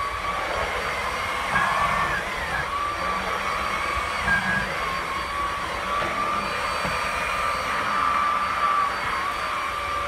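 Hoover ONEPWR Blade+ cordless stick vacuum running in hard-surface mode on a hard floor: a steady motor whine whose pitch wavers slightly now and then.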